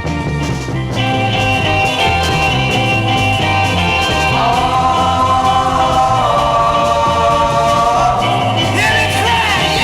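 1960s garage-rock recording: a full band playing the song's intro over a steady pulsing bass line, with a wavering melodic line entering about four seconds in.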